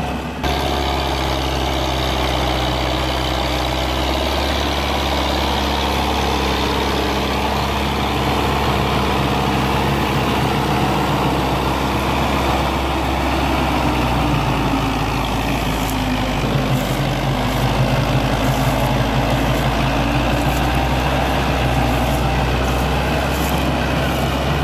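Tractor diesel engine running hard, pulling a loaded sugarcane trolley out of mud and blowing black smoke. The engine note shifts about halfway through.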